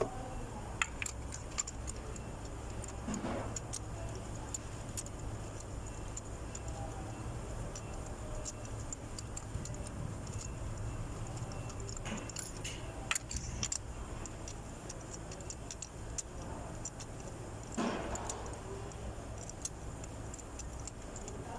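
Scattered clicks and light metal clinks of hand tools and engine parts being handled during spark plug and coil work, with a few louder knocks, over a steady low hum.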